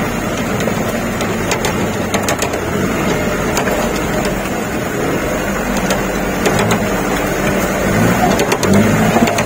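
Engine of an off-road 4x4 running as it drives through a river, heard inside the cab, with water washing against the vehicle and the cab rattling. The engine grows louder near the end.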